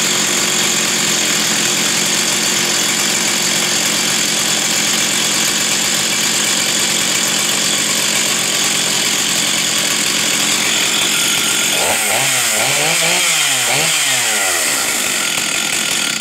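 Stihl 044 Magnum 70cc two-stroke chainsaw running at high speed. Its pitch dips and rises several times about twelve seconds in, then it cuts off suddenly.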